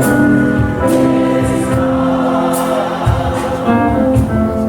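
Gospel hymn with instrumental backing, a choir holding sung notes between lines.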